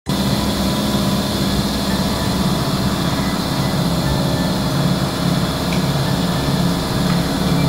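Car engine idling, a steady low running sound.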